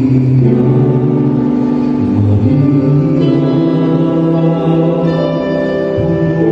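A male soloist singing a slow ballad into a microphone, with a choir and instrumental accompaniment holding long sustained notes beneath him.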